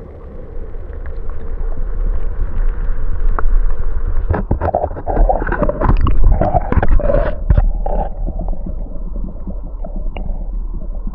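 Water splashing and gurgling close to the microphone, busiest in the middle, over a steady low rumble.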